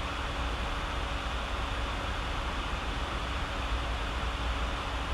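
Steady background hiss with a low hum: the recording's noise floor, with no distinct sound events.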